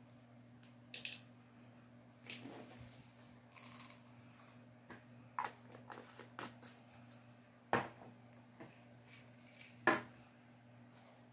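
Small plastic clicks and light rattling as tablets are handled and sorted into a plastic weekly pill organizer, with two sharper snaps late on.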